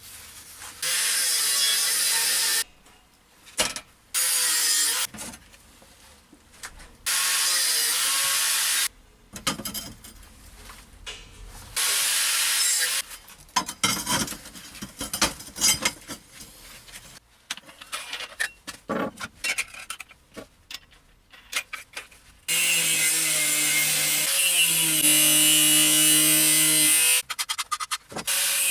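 Angle grinder with a cut-off disc cutting steel angle iron. There are three short cuts of a second or two each, then a stretch of irregular scraping and metal clatter, then one longer cut of about four seconds near the end.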